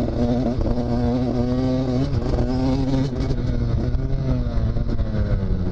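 KTM SX 85 two-stroke single-cylinder motocross engine running, its pitch rising and falling several times with the throttle.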